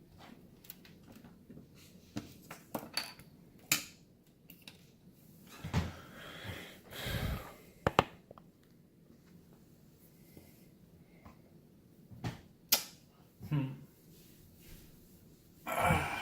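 Scattered sharp clicks and light knocks of small parts and tools being handled, with a few short rustles in between.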